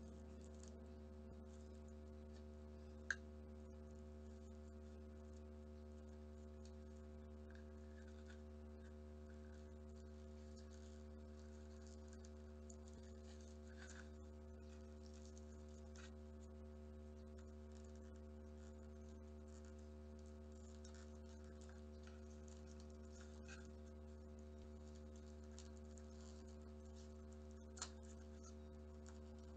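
Near silence with a steady low hum, and faint rustles and ticks of origami paper being handled and folded. Two sharp clicks stand out, about three seconds in and near the end.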